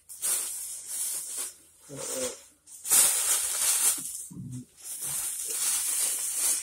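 Rustling, hissing handling noise in several stretches, each about a second long, as someone moves close to the microphone, with two short low mumbles, about two and four and a half seconds in.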